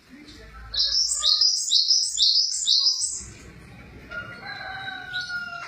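A glatik songbird singing a loud run of about seven quick, high, falling notes over some two and a half seconds. Softer, lower drawn-out notes follow near the end.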